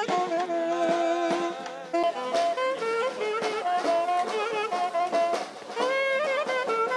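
Live Turkish folk music: a davul drum beating a steady rhythm under a reed wind instrument playing a wavering melody, held-note phrases changing pitch every half second or so.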